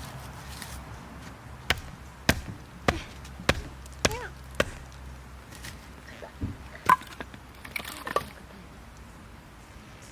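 Wood being chopped: a run of six sharp knocks about a second and a half in, less than a second apart, then a few scattered knocks later.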